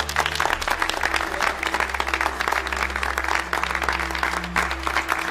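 A small group applauding: many hands clapping in a dense, irregular patter. Low, sustained music notes run underneath.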